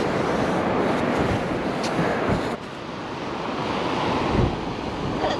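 Wind rushing over the microphone of a camera worn while riding: a steady noisy rush that drops off suddenly about two and a half seconds in, then builds again.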